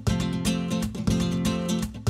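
Background music led by a strummed acoustic guitar, with a steady rhythm.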